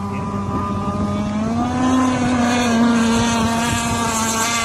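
Radio-controlled speedboat running at high speed, its motor a steady whine that rises in pitch about a second and a half in and then holds.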